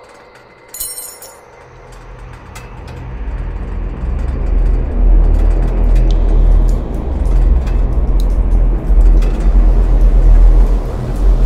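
Background soundtrack swelling in over a few seconds into a loud, deep rumbling drone with a noisy wash above it, after a brief high-pitched chirp about a second in.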